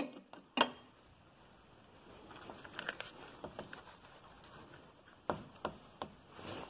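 Faint, scattered metallic clicks and ticks of a small hand socket wrench snugging down the thermostat housing bolts: one sharper click about half a second in, a loose run of small ticks in the middle, and a few more clicks near the end.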